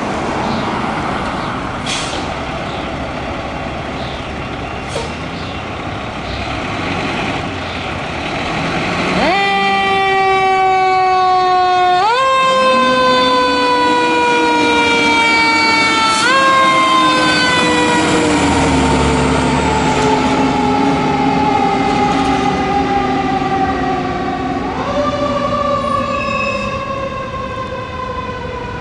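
Federal Q2B mechanical siren on a fire engine. After several seconds of steady rumble it winds up sharply about nine seconds in, and again twice at short intervals, each time sinking slowly. It then coasts down over several seconds and spins up once more near the end.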